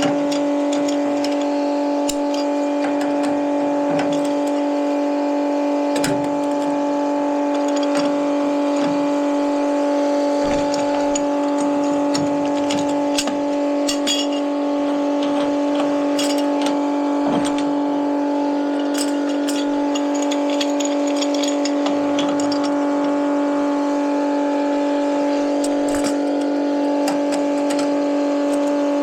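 A steady pitched machine hum throughout, with scattered clicks and metal clinks on top.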